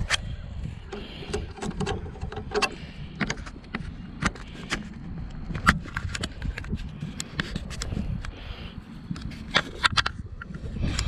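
A Traxxas Mustang GT radio-controlled car running over an asphalt path: a steady low rumble of tyres on coarse pavement, broken by many irregular clicks and rattles.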